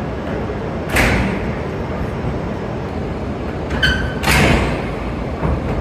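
Shinkansen cars coupling: a heavy thud about a second in, then a brief tone and a burst of hiss a little before four seconds, over a steady low rumble.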